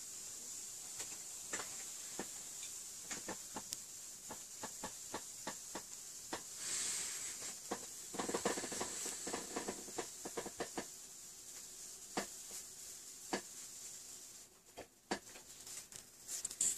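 Faint steady hiss with scattered light clicks and a short rustle, typical of handling noise from a handheld camera.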